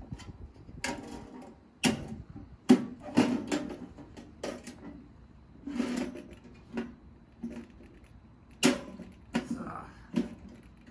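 Irregular clanks and knocks of a small sheet-metal tent wood stove being handled and set up, its folding legs clicked out, about a dozen sharp strikes with pauses between them.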